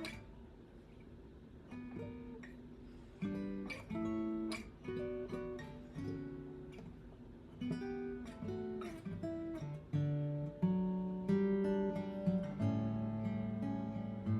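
Acoustic guitar with a newly fitted bone, played with single plucked notes and chords that ring and fade. The playing grows fuller and louder about halfway through.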